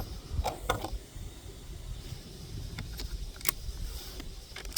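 A handful of separate sharp metallic clicks and knocks from a Tikka T1X .22 LR bolt-action rifle being handled while its magazine is changed, the strongest about three and a half seconds in.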